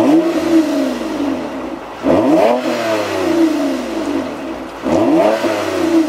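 2020 Toyota Camry TRD's 3.5-litre V6 revved through its TRD cat-back exhaust: three quick throttle blips, near the start, about two seconds in and about five seconds in. Each one rises sharply and then falls back slowly toward idle.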